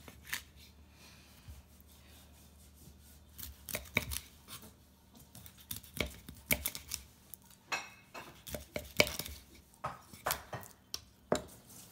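Knife cutting a hilsa fish into steaks on an end-grain wooden cutting board: irregular sharp knocks as the blade comes through the fish onto the wood, sparse at first and then coming quickly from about four seconds in.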